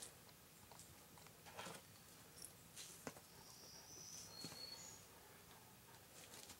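Near silence outdoors, with a few faint scattered taps and scuffs and a faint, thin, high whistle-like tone lasting about a second near the middle.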